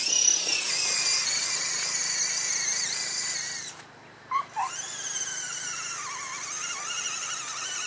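Electric motor and geared drivetrain of an Axial SCX10 Honcho RC crawler whining as it drives through mud. The whine stops briefly about four seconds in, then comes back with its pitch rising and falling as the throttle changes.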